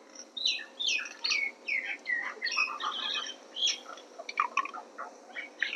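Birds chirping in a busy run of short, quick calls, many of them falling in pitch, overlapping throughout.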